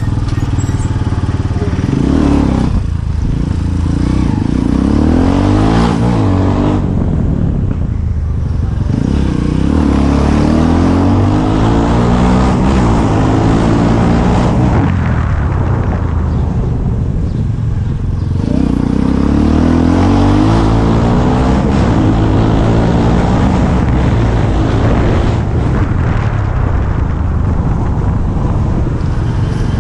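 Motorcycle engine heard from the rider's seat, its pitch climbing and dropping every few seconds as the throttle is opened and eased off at low speed.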